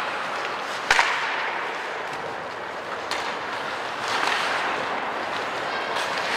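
Ice hockey play in an arena: skates scraping on the ice over a steady hiss of rink noise, with one sharp crack about a second in and fainter knocks later.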